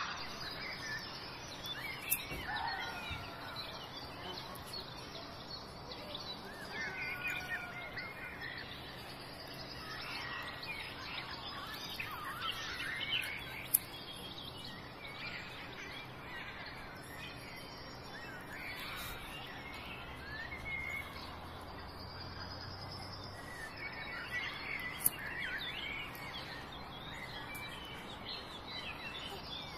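Birds chirping and calling in short twittering phrases all through, with three sharp clicks spread across it from a pocket lighter being struck to light small candles.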